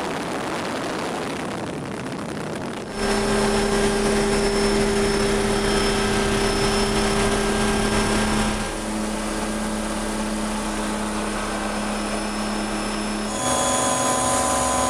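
Turbine helicopter running, heard from inside the cabin: a noisy rush of wind at first, then a steady turbine and rotor hum with a whine. The sound changes abruptly about three seconds in, again about two-thirds of the way through, and once more near the end.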